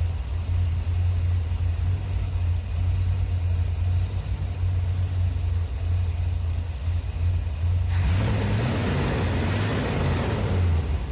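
1981 Corvette's 350 V8 idling steadily during carburetor tuning. About eight seconds in, the revs climb briefly with a louder engine note, then fall back toward idle.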